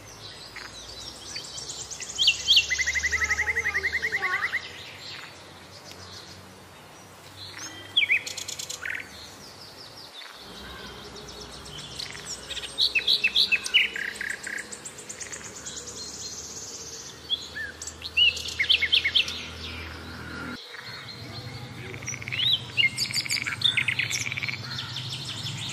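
Birds chirping and singing: a mix of short chirps, whistled notes and rapid trills, with one fast trill lasting about two seconds, starting about two seconds in.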